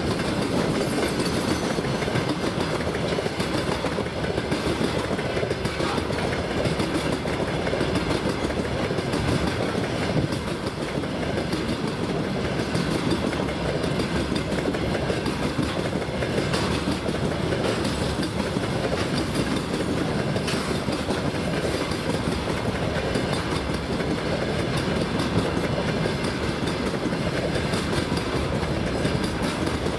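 Freight train's covered hopper wagons rolling past at close range: a steady, continuous clatter of steel wheels on the rails.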